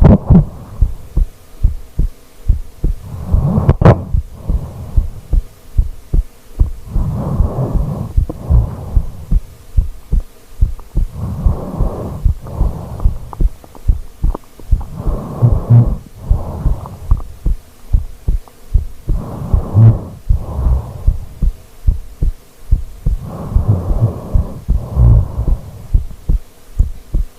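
A person snoring: fluttering low snores in a slow breathing rhythm, about one every four seconds.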